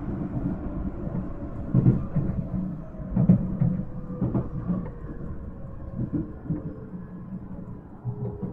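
Nankai 1000-series electric train heard from inside the car while running at speed: a steady low rumble of wheels on rail, broken by a few louder clacks as the wheels pass rail joints.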